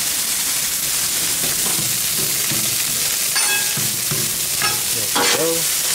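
A frozen pepper-and-onion blend and tater tots sizzle steadily on a hot flat-top griddle. A metal spatula scrapes across the griddle as the food is moved around, with a few sharp metallic clinks in the second half.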